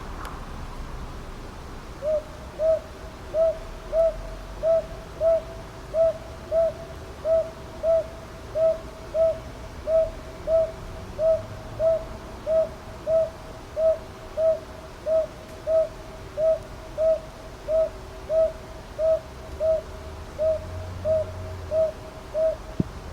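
Northern boobook (Japanese hawk-owl) calling: a long, even series of soft low hoots, about one and a half a second, starting about two seconds in and stopping just before the end.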